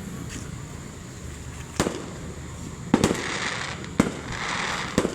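Fireworks going off: a quiet first two seconds, then about five sharp bangs, two of them almost together near three seconds in, with a steady hiss between the later ones.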